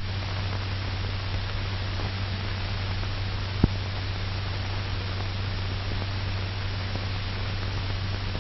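Steady hiss and low hum of an old film soundtrack, with a single sharp click about three and a half seconds in.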